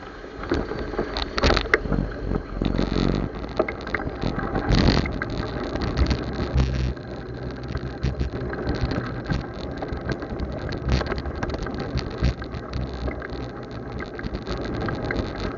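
Rumbling road and wind noise on a camera riding along on a fat bike, with many irregular knocks and rattles from the ride.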